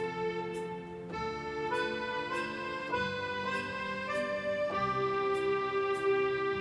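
Electronic keyboard playing a slow melody in long held notes with a sustained voice, over held chords and a soft ticking beat. The melody steps to a new note every half second to a second.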